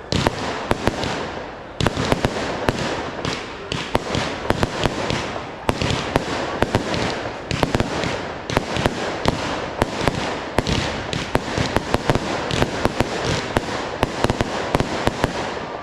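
Fireworks display in a dense barrage: many sharp bangs a second over continuous crackling.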